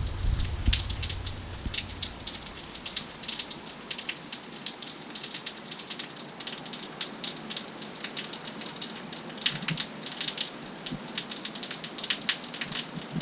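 Rain falling steadily, with many sharp drop ticks spattering on a surface. A gust of wind rumbles on the microphone at the start and dies away within about a second.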